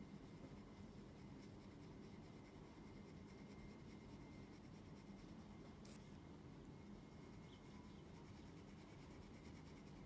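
Faint scratching of a graphite pencil drawing fine hatching lines on textured watercolour paper. The scratching stops briefly about six seconds in, when the pencil is lifted, with a single click there.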